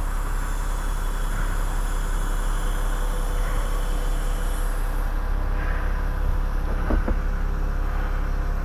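Two-stroke chainsaw idling steadily close by, a low even engine drone, with a couple of light knocks about seven seconds in.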